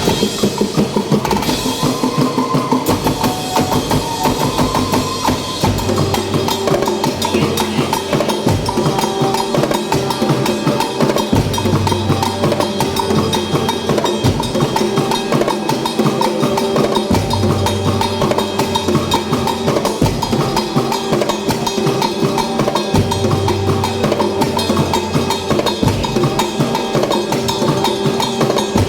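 Percussion group playing a fast, continuous drum rhythm on snare and bass drums with wood-block clicks, some held pitched tones above it, and a deep bass swell about every six seconds.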